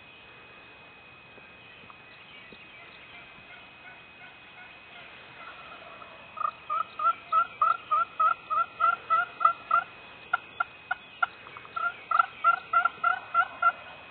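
Turkey yelping: a long run of evenly spaced yelps, about four a second, begins some five seconds in, is broken by a few short sharp clucks, and then resumes.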